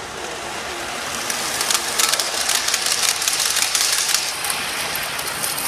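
A model passenger train running past close by, its wheels clicking rapidly over the track. The running noise rises from about a second in, is loudest in the middle and eases near the end.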